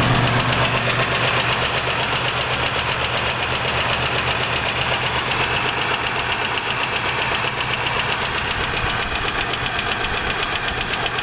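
GM 3800 V6 engine running with a fast, steady knock that repeats evenly and keeps time with the engine.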